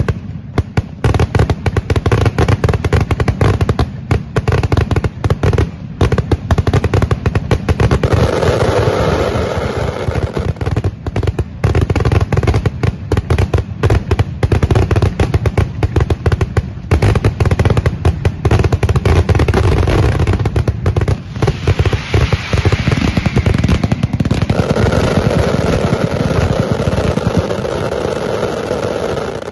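Mascletà firecrackers going off in a dense, continuous barrage of rapid, loud bangs, with aerial shells bursting overhead. The barrage cuts off abruptly at the very end.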